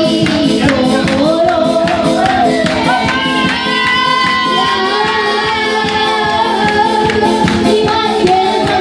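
A boy singing a song into a microphone over an electronic keyboard's accompaniment with a steady beat, played loud through PA loudspeakers.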